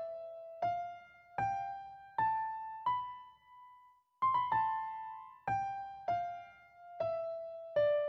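Background piano music: a slow melody of single notes, each struck and left to fade, stepping up in pitch and then back down, with a brief pause about halfway through.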